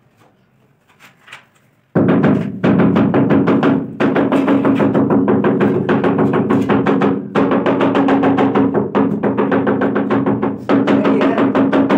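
Background music with a fast, even drum beat over steady low notes starts abruptly about two seconds in. Before it there is only quiet with a couple of faint taps.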